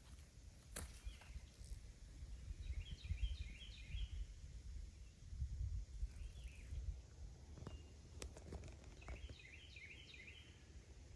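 Songbird singing: two runs of quick chirping trills, one about three seconds in and one near the end, over an uneven low rumble, with a few sharp clicks.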